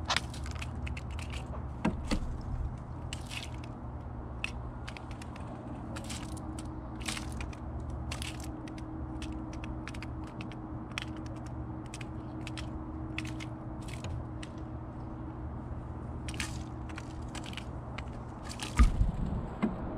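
California scrub-jay pecking and picking at in-shell peanuts and seeds on a wooden platform feeder: a scattered string of sharp taps and cracks over a steady low hum, with one heavier thump near the end.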